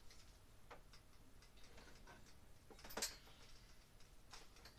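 Faint scattered clicks and light taps of small hardware and tools being handled, with one sharper click about three seconds in.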